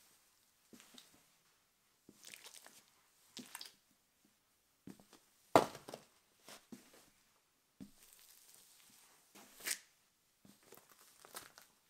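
A sneaker sole stepping on and crushing small objects, among them a soft green jelly and a crunchy, crumbly food. It makes a run of separate squishes and crunches. The loudest is a sharp crack about five and a half seconds in, with another loud crunch about four seconds later.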